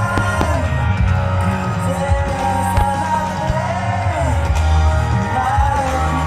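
Music with a singer and a heavy, steady bass line, played loud over outdoor loudspeakers, with a few short sharp pops from fireworks bursting.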